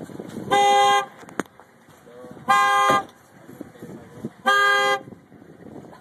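Car horn blaring three times in a steady pulse, each blast about half a second long and about two seconds apart: the car's alarm has been set off.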